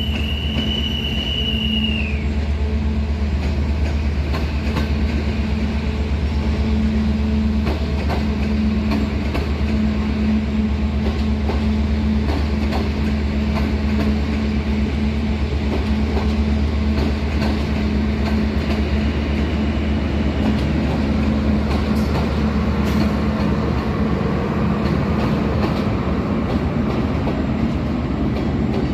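EA 392, a 060-EA electric locomotive, pushing a train at low speed. Its running gear gives a loud steady low hum, with clicks from rail joints. A high wheel squeal sounds for the first two seconds and falls in pitch as it fades, and comes back faintly about twenty seconds in.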